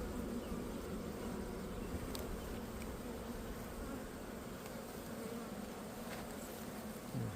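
Many honeybees buzzing around an open hive, a steady, even hum.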